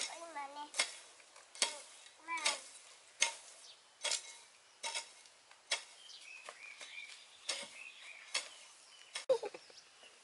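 Hoe chopping and scraping into dry soil in a steady rhythm, one stroke about every 0.8 seconds.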